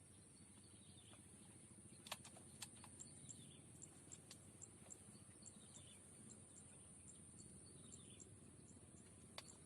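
Faint open-air ambience near silence: a steady high whine with faint chirps about twice a second, a few soft descending chirps and light clicks.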